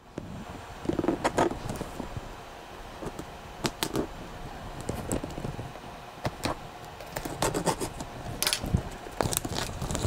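Plastic overwrap being worked off a cardboard product box by hand: irregular crinkling and scraping with scattered sharp clicks.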